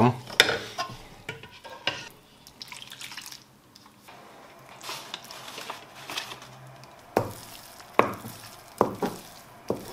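A wooden spatula stirs steamed sticky rice in a frying pan, with warm coconut-milk syrup ladled over it, scraping and sloshing through the wet rice. Several sharp knocks come as the spatula strikes the pan, most of them in the last three seconds.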